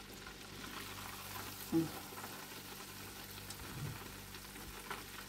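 Battered pollock fillets deep-frying in an electric deep fryer: hot oil sizzling and bubbling steadily, with a few faint knocks.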